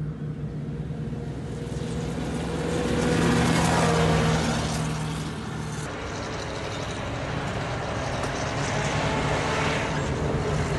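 Engines of heavy eight-wheeled Uragan multiple rocket launcher trucks running as they drive on dirt, one passing close and getting louder about three to four seconds in. The engine sound changes about six seconds in and then slowly grows louder again.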